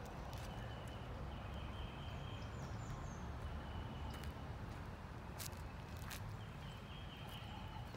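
Outdoor ambience at a wooded lot: a steady low rumble of wind on the microphone, with faint high-pitched bird calls from the trees, each held for about a second, and a couple of sharp clicks a little after halfway.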